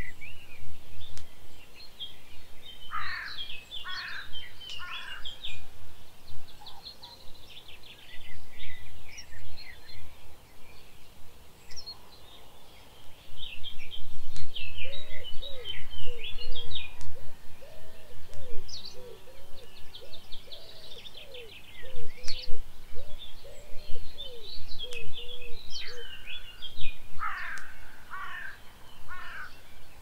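Wild birds singing, with many high chirps and trills from several birds. From about a quarter to most of the way through, a run of lower, repeated whistled notes joins in.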